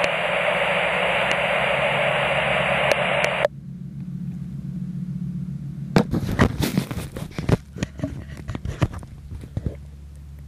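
Aircraft radio hiss with a low hum that cuts off suddenly a few seconds in. About two seconds later comes a run of sharp clicks and knocks, with a fainter low hum under them.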